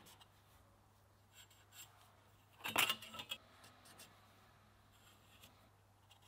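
A toothed steel segment cut from a sprocket ring set down on a wooden workbench, clinking and ringing in a short clatter about three seconds in. A paint marker scratches faintly on the steel before and after.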